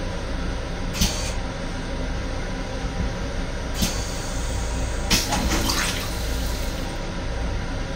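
Stainless steel toilet of a Long Island Rail Road M7 railcar at the tail of its flush: water running and draining in the bowl, with brief spurts about a second in, near four seconds and again just after five seconds, over a steady low rumble.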